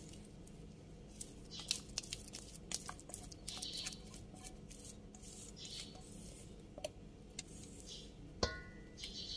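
Cake batter being poured from a stainless steel mixing bowl into a rice cooker pot, with scattered soft taps and scrapes. About eight and a half seconds in there is one sharp metal clink that rings briefly.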